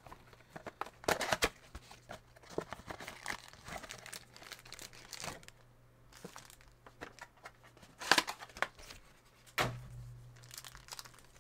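Trading-card blaster box being torn open: plastic wrap and packaging crinkling and tearing, with scattered crackles and a few louder rips, the loudest about a second in and near the eight-second mark.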